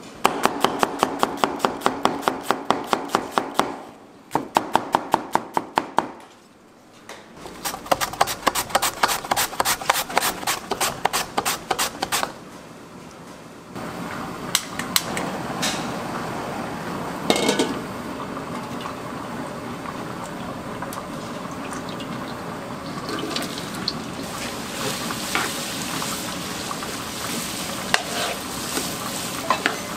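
A chef's knife chopping an onion on a plastic cutting board in quick, even strokes, about five a second, in runs broken by short pauses. Then a long lighter clicks and a gas range burner burns with a steady hiss, and near the end onion and carrot strips begin sizzling as they are stirred in a wok with a wooden spatula.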